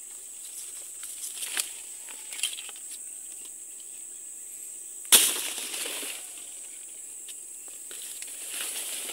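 Leaves and undergrowth rustling as someone pushes through wild taro plants, with one sharp crack about five seconds in. A steady high-pitched insect drone runs underneath.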